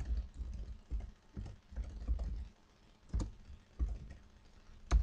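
Typing on a computer keyboard: an uneven run of keystrokes, with two sharper key hits about three seconds in and just before the end.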